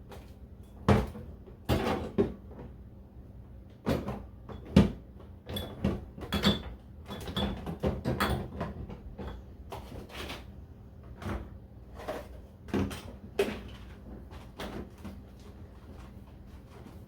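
Irregular knocks, taps and clatters of pantry items and containers being picked up and set down on shelves. The loudest knocks come about a second in and near five seconds in.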